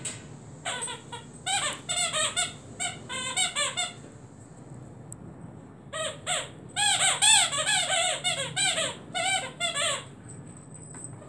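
A rubber squeaky toy bone squeaking as a dog chews it, in quick runs of short squeaks, several a second. There are two runs, one starting about a second in and a louder one about six seconds in.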